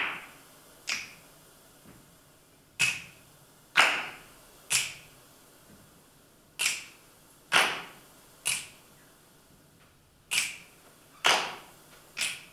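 Sharp, dry percussive clicks in a slow repeating pattern of three about a second apart, with a longer pause after each set: the rhythmic opening of the song before the singing starts.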